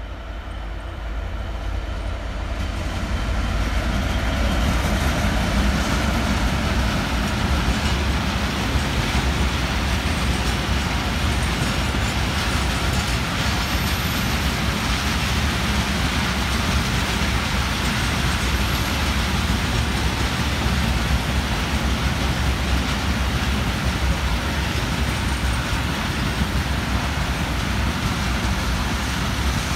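A Class 66 diesel freight locomotive with a two-stroke V12 engine approaching and passing, growing louder over the first four seconds. It is followed by a long train of loaded box wagons rolling past with a steady rumble of wheels on rail.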